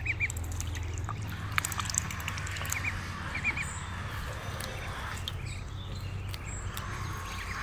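Farmyard ducks feeding on grass, with a few short high calls in quick twos and threes and faint scattered pecking clicks over a steady low hum.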